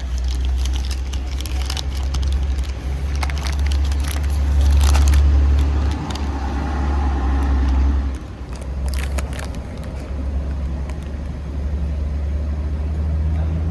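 A motor vehicle running, a steady low rumble with occasional clicks and rattles over it.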